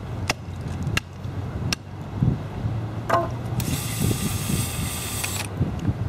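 Cordless drill-driver running for about two seconds from about three and a half seconds in, driving a screw into a wooden frame. Before it come three sharp knocks.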